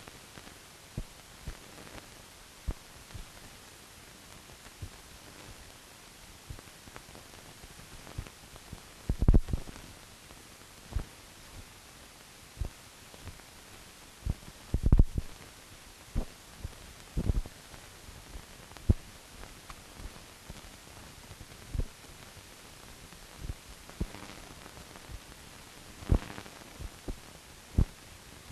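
Steady hiss with scattered clicks and low pops at irregular intervals, the heaviest about nine and fifteen seconds in: surface noise on the track of a silent newsreel film, with no recorded sound of its own.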